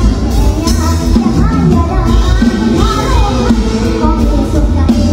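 Live mor lam band music, loud: a singer's melody over heavy bass and drums in a lively toei song.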